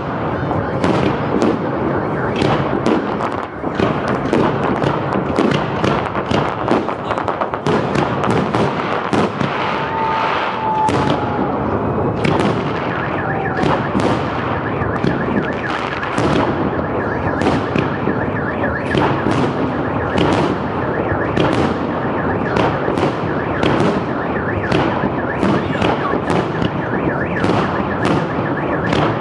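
Fireworks salute: aerial shells bursting in many rapid, overlapping bangs. A steady high tone sounds under the bangs through the second half.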